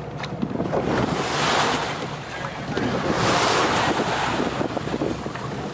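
Wind buffeting the microphone and sea water washing, over a steady low hum from the tour boat's engine. The rushing noise swells twice, about a second in and again about three seconds in.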